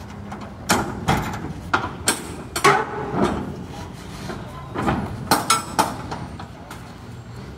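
Steel shipping-container door being unlatched and opened: a run of sharp metal clanks and rattles from the locking-bar handles and cam bars, some briefly ringing, over the first six seconds.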